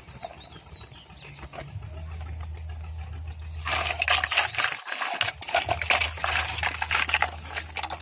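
Crackling and clicking of plastic packaging and small plastic toy pieces being handled, a dense run of quick crackles through the second half. A low steady hum starts about two seconds in, and faint bird chirps come early.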